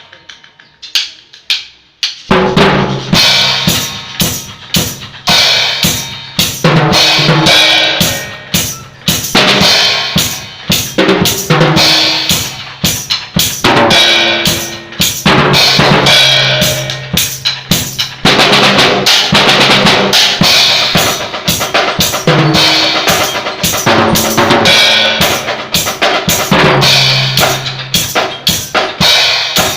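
Drum kit being played: a couple of soft hits, then from about two seconds in a loud, busy beat of bass drum, snare and cymbals that keeps going.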